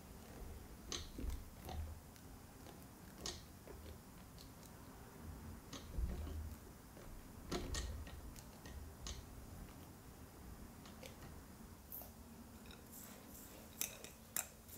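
A silicone spatula scraping thick, sticky meringue off a stand mixer's wire whisk attachment, with quiet scattered clicks and taps of the spatula and whisk wires and a couple of soft thumps. Near the end, a few sharp clicks against the glass mixer bowl.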